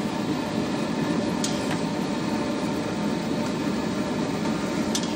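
Steady droning background noise at an even level, with a few faint clicks.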